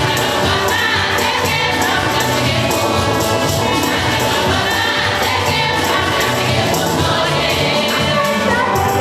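A group of voices singing a gospel song together over a steady percussion beat.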